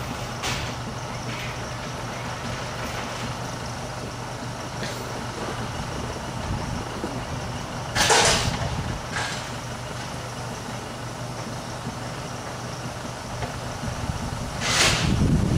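Construction tractor engine running steadily at idle, a low, even hum. Two short bursts of hiss cut in, one about halfway through and a louder one near the end.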